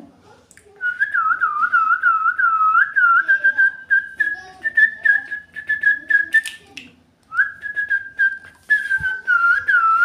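A person whistling a tune: a string of dipping, swooping notes, then a run of held notes. It breaks off about seven seconds in and starts again shortly after, over faint clicks.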